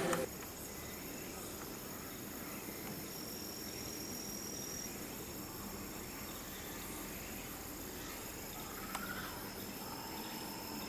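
Outdoor ambience with insects chirring: steady high-pitched trills over a faint low background noise.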